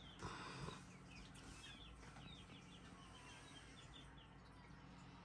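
Chickens in a plastic storage bin give a quick run of faint, high, short chirps and cheeps over the first four seconds or so. There is a brief soft rustle near the start.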